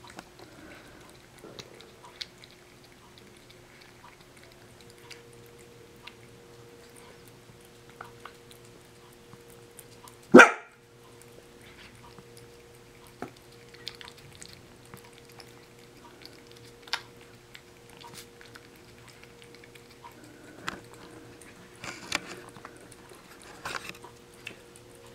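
A British Shorthair cat licking a soft treat from a small cup, with faint wet clicks and smacks scattered throughout and a faint steady hum behind. About ten seconds in, a single short, loud dog bark.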